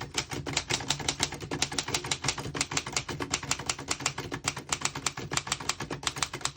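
1924 Remington Portable manual typewriter being typed on steadily: a quick, even run of typebar strikes at about seven a second.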